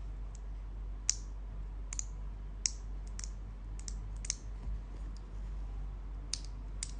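Mechanical keyboard switches being pressed one at a time: about a dozen sharp, irregularly spaced clicks over a low steady hum.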